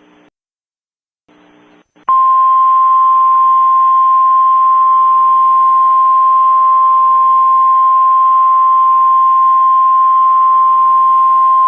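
Emergency alert attention tone. At first there is only faint hiss with a low hum, broken by a brief dropout. About two seconds in, a loud, steady, single high tone starts abruptly and holds unbroken, over a layer of hiss.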